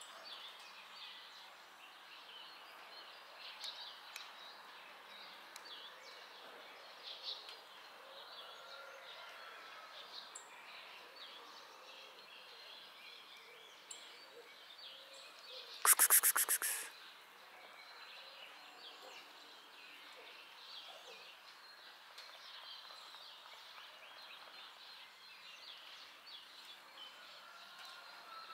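Outdoor ambience with faint bird chirps scattered throughout. About sixteen seconds in comes a loud, rapid rattle of clicks lasting about a second.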